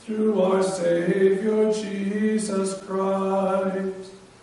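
A man chanting the communion liturgy solo on long, mostly level held notes. The phrase trails off near the end.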